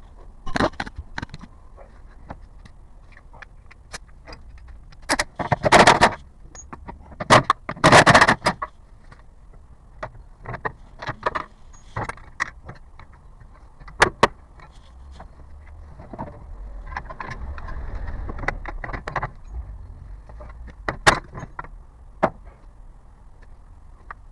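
Hyundai Grandeur (HG) on the move, with repeated knocks and rattling clatters from the front and rear of the car over a low road rumble. The loudest clatters come about six and eight seconds in. These are the front and rear noises the owner is chasing.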